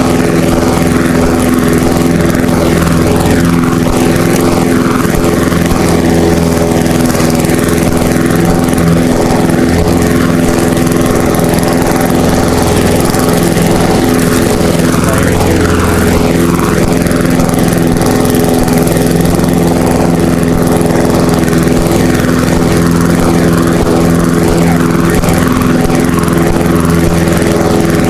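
Lawn mower's small petrol engine running loud and steady at constant speed, close to the microphone.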